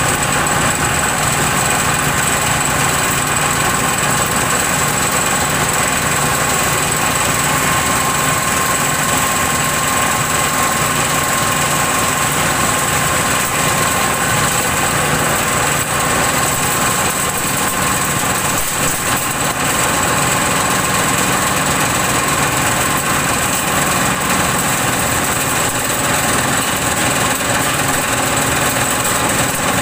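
Twelve-blade organic-waste chopper run by a small horizontal diesel engine, running steadily under load as compost material is shoveled into its hopper. A steady high whine sits over the engine noise.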